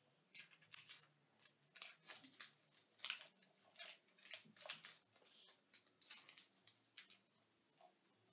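Faint, irregular crinkling and snipping of a toy's plastic blind-pack wrapper being cut and torn open by hand, a few short crackles a second.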